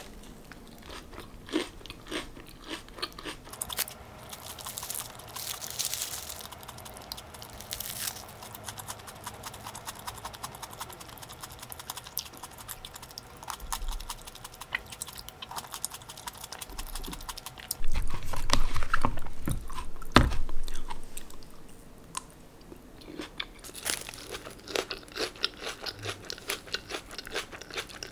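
Close-up eating sounds of a lettuce, tomato and cheese sandwich: crisp bites and steady crunchy chewing of the lettuce and bread. About eighteen seconds in there is a louder stretch of low thumps lasting about three seconds.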